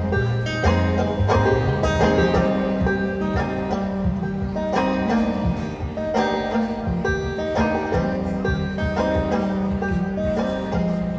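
Live instrumental break of banjo picking over upright double bass, with steady plucked notes and a deep bass line.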